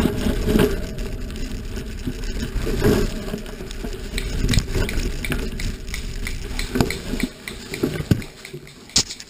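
Rumble and irregular knocks and rattles of a camera moving over dirt and leaf litter. The rumble fades over the first few seconds, and a few sharp clicks come near the end.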